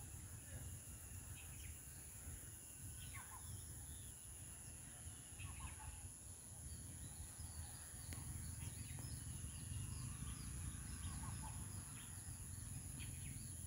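Rural outdoor ambience: a steady high-pitched insect drone, scattered short bird chirps, and a low rumble underneath.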